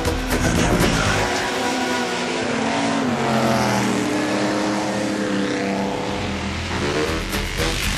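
Engine of a vintage open-wheel racing car running hard uphill, its pitch rising a few seconds in, holding, then falling near the end. Background music fades out about a second in and comes back near the end.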